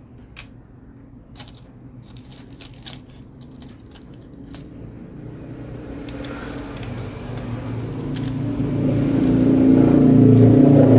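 Light clicks and taps of small laptop screws and the plastic cover being handled, then a vehicle engine growing steadily louder through the second half, as of a vehicle approaching.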